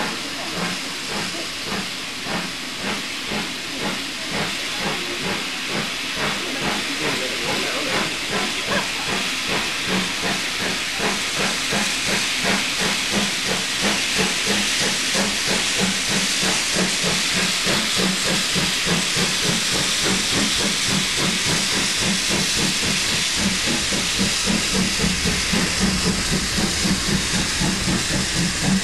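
Steam locomotive working toward the listener: rapid, regular exhaust chuffs over a hiss of steam, growing steadily louder as it draws near.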